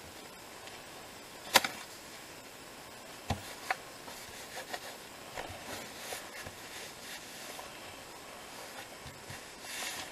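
Hands working paper and card: a bone folder rubbing over a folded cardstock bookmark, with one sharp tap about a second and a half in, two lighter taps a couple of seconds later, and soft scattered taps and rustles.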